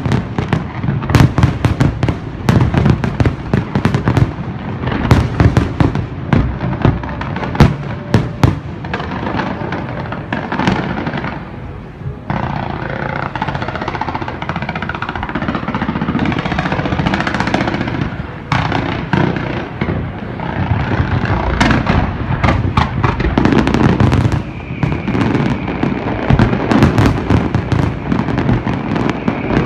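Large fireworks display: a dense barrage of rapid, overlapping bangs from bursting shells. For a few seconds in the middle the bangs thin into a steadier crackling hiss, then the rapid bangs resume.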